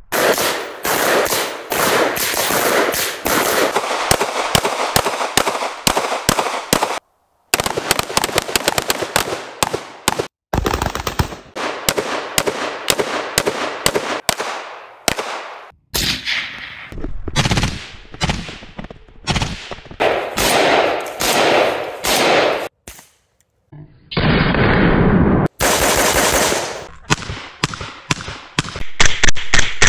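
Rapid strings of gunfire from AR-style carbines and a pistol, several shots a second. They come in separate runs that cut off and restart abruptly.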